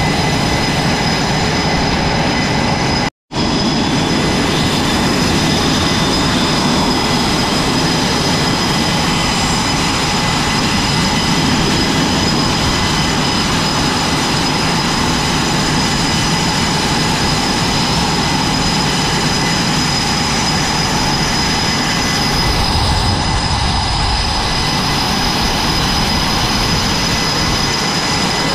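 F/A-18 Super Hornet jet engines running on a carrier flight deck: a steady loud rushing noise with a high, even turbine whine. The sound cuts out completely for a moment about three seconds in.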